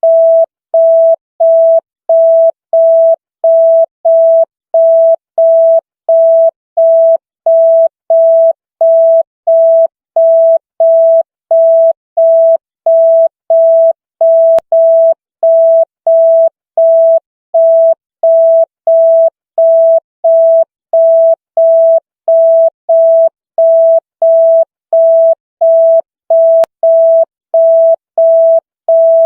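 Electronic beep tone at one steady pitch, switching on and off evenly about one and a half times a second, like a telephone busy signal.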